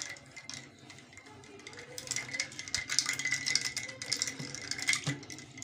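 A spoon stirring ice cubes in a glass mug of juice: the ice clinks and rattles against the glass in quick runs of small clicks, sparse for the first couple of seconds, then busier.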